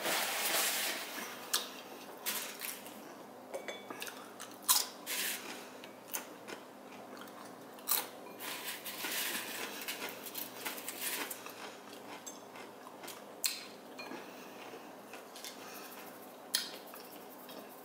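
A paper napkin rustling as it is unfolded, then eating sounds: chewing and crunching of crisp taco shells and chips, with scattered sharp clicks and taps from handling the plate.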